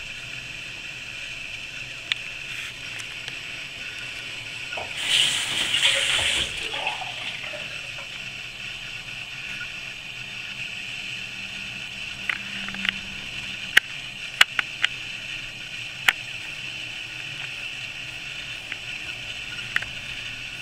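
Water running from a bathroom tap for about a second and a half, about five seconds in, over a steady hiss. Later comes a handful of sharp clicks.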